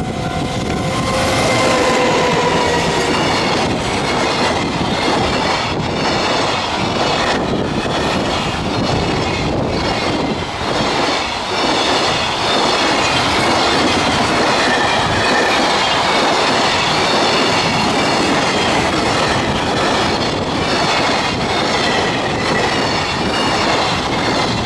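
Freight train hauled by an EF210 electric locomotive passing at speed: a loud, steady rolling rumble of the wagons' wheels on the rails, with occasional clicks over rail joints. A tone falls in pitch about a second in as the locomotive goes by.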